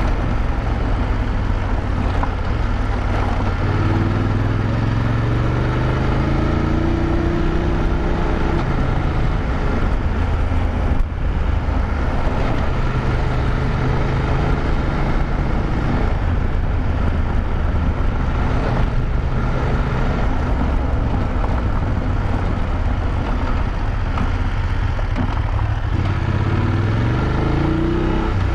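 BMW F850GS Adventure's parallel-twin engine running at speed on a dirt road, over a steady hiss of wind and tyre noise. The engine pitch rises and falls with the throttle, with one sharp knock about eleven seconds in. Near the end the pitch drops as the bike slows, then climbs again.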